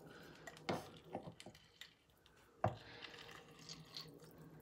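A handful of faint, light clicks and knocks from a plastic mini chopper bowl and its lid being handled, the loudest a little past halfway.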